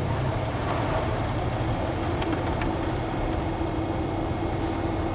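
Steady engine and road noise inside a car's cabin as it drives slowly along a street.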